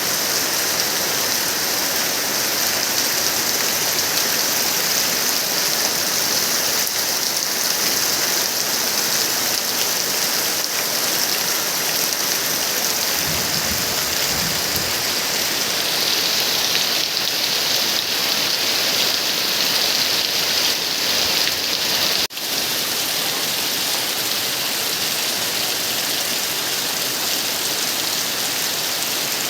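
Steady heavy rain falling on surfaces, an even, dense hiss.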